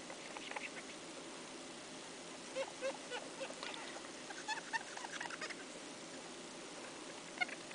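Damp cotton swab rubbed on a phone's screen, giving faint clusters of short squeaks from about two and a half seconds in.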